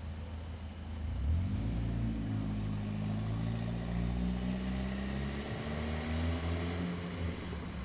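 Distant low horn-like drone of several tones sounding together. It swells in about a second in, holds steady, then slides down in pitch and fades near the end.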